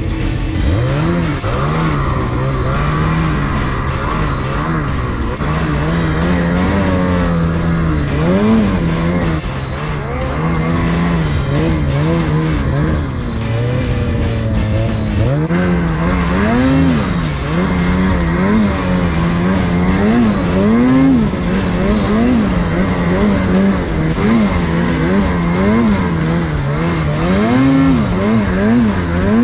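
Ski-Doo Summit snowmobile's turbocharged two-stroke engine working hard through deep powder. The revs climb and drop again and again as the throttle is blipped on and off.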